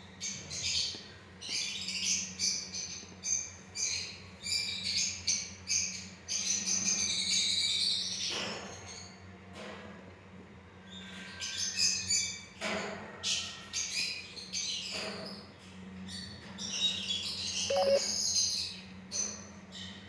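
Lovebirds chirping in fast, high-pitched runs of short calls that come in busier spells, over a steady low hum.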